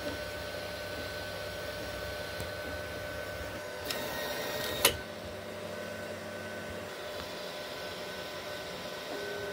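Anycubic Kobra 3 3D printer running mid-print: a steady hum with a few held tones. Near the middle, about a second of louder hiss ends in a sharp click, the loudest sound.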